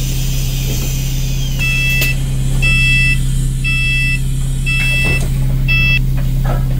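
Bus reversing alarm beeping five times, about once a second, each beep about half a second long, over the steady low hum of the bus's running engine.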